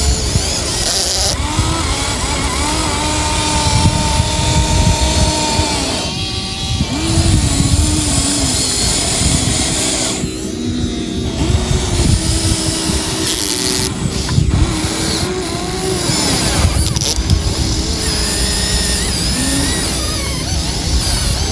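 Electric motors and gearboxes of a Huina 1593 remote-control excavator whining, the pitch stepping up and down and changing every second or two as different functions start and stop, over a steady noisy rumble.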